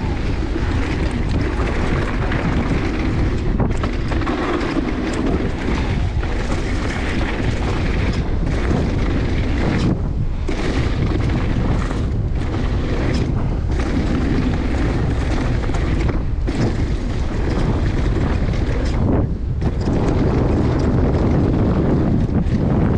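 Wind buffeting a GoPro's microphone during a fast mountain-bike descent, a loud steady rumble mixed with the bike's tyres running over a dirt trail. The noise drops out briefly several times.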